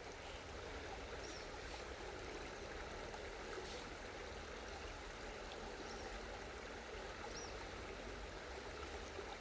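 Faint, steady rush of flowing water from a waterfall stream.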